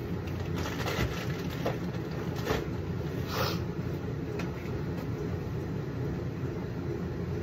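Steady low rumble of a running machine, with a few brief rustles and knocks in the first half as things are handled.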